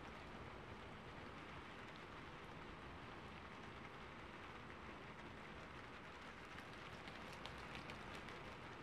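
Faint, steady rain falling, with a scatter of small drop ticks about two-thirds of the way through.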